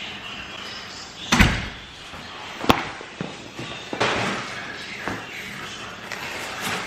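A door slamming shut about a second and a half in, then a single sharp knock a little over a second later, with fainter clatter of things being handled.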